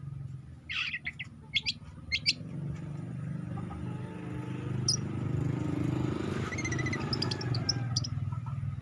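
Young long-tailed shrike (cendet) calling: a few loud, sharp chirps about a second in, then a quicker run of high chirps in the second half. A steady low hum runs beneath.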